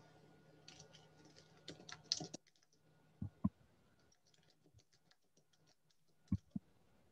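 Faint clicking and tapping of a computer keyboard and mouse over a video call's microphone: a quick flurry of clicks in the first two seconds or so, then two pairs of sharper knocks, one a few seconds in and one near the end, among scattered light ticks.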